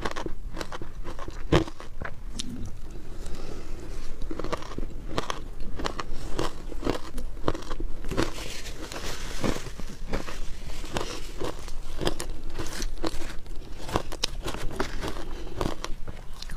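Close-miked chewing of shaved ice dusted with matcha powder: a dense, irregular run of crisp crunches, with a metal spoon scooping through the ice in a plastic tub near the end.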